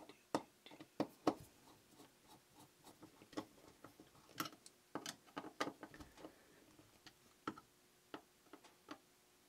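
Hand screwdriver turning small screws into a metal conduit box: faint, irregular clicks and ticks.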